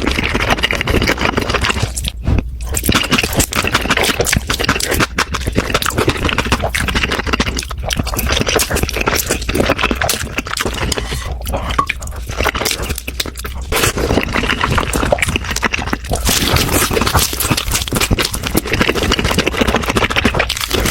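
Close-miked mukbang eating sounds: continuous chewing, crunching and wet mouth noises.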